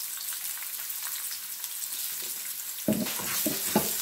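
Sliced onions sizzling in hot oil in a non-stick frying pan, along with browned garlic. A steady sizzle, with a wooden spatula stirring and scraping against the pan three or four times near the end.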